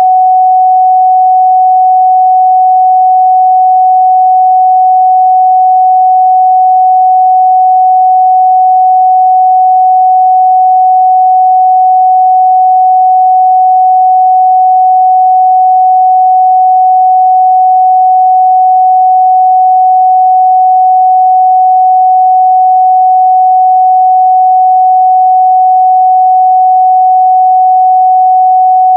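A steady, loud pure sine-wave test tone at 744 Hz, one unchanging pitch with no overtones.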